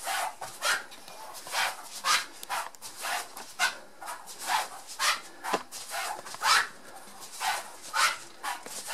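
Quick rhythmic swishing strokes, about two a second, from a person practising judo foot sweeps on a mat in socks.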